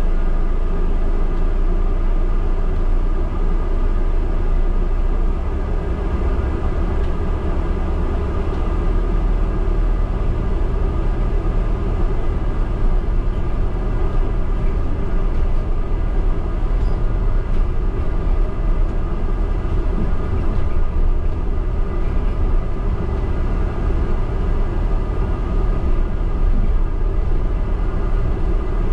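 Double-decker bus running, heard from inside on the upper deck: a steady low rumble with a constant hum of several steady tones above it.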